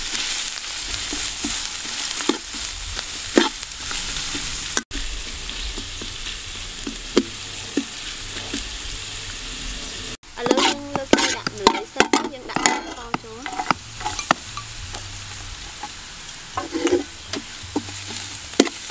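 Shredded vegetables and garlic sizzling in hot oil in an aluminium wok, a metal spatula scraping and clicking against the pan as the food is stirred.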